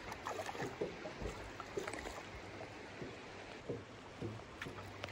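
Faint water lapping and trickling against a small boat's hull, with scattered small knocks and handling noise.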